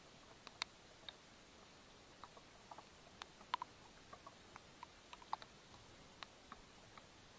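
Faint, scattered light ticks and clicks, a few a second at uneven intervals, over a quiet steady background; one tick about halfway through stands out louder.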